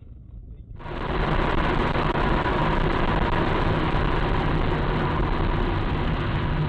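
Steady road and engine noise of a moving car, starting abruptly about a second in and holding even, with a faint steady whine.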